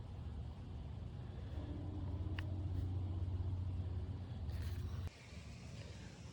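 Low steady rumble that cuts off suddenly about five seconds in, with a single light click midway.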